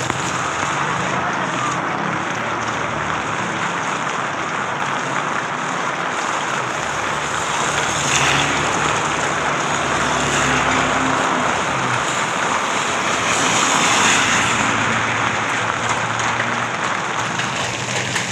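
Heavy rain falling on an umbrella overhead and on wet pavement, a steady loud hiss, with motor traffic running nearby that swells about midway and again near the end.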